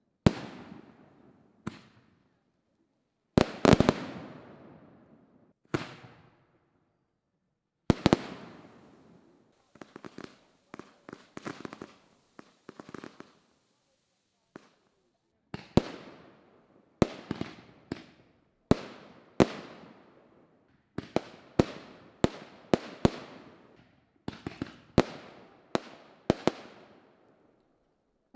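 Aerial fireworks shells going off: scattered sharp bangs with echoing tails, the loudest a double bang a few seconds in, a run of quicker small pops about ten seconds in, then bangs about once a second, packed closer together near the end.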